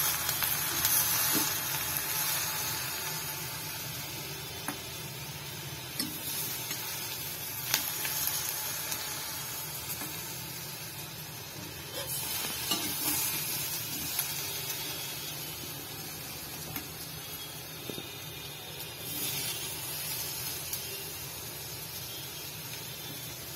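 Agathi keerai (sesbania leaves) stir-frying in a pan, a steady sizzle with a few light clicks of a metal spatula against the pan.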